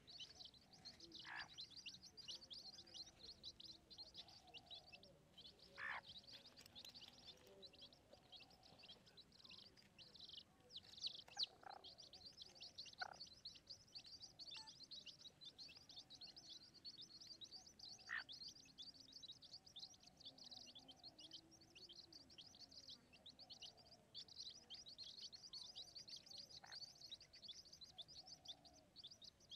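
Faint, rapid high-pitched bird chirping that runs on without a break. A few short, sharper calls stand out every several seconds.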